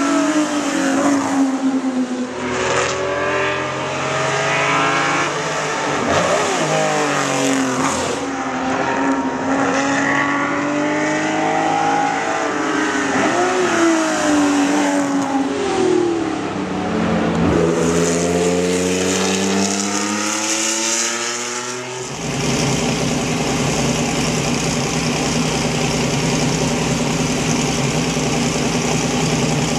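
Vintage Ferrari racing car engines running hard on track, the pitch climbing and dropping again and again with throttle and gear changes. About 22 seconds in, this gives way to a racing engine idling steadily.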